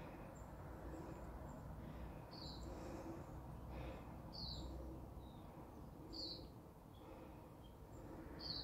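A bird chirping faintly, four short high chirps about two seconds apart, over a low steady background rumble.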